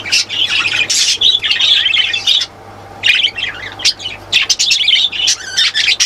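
Budgerigars chattering and squawking in quick, short calls, with a brief lull about two and a half seconds in.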